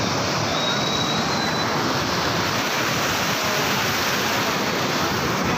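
Swollen stream in flood pouring over a road causeway: a steady, unbroken rush of water.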